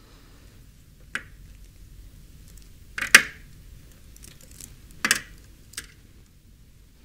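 Sharp plastic clicks from lever-style WAGO wire connectors being handled and worked as wires are connected: four distinct clicks, the loudest about three seconds in, with a few fainter ticks between.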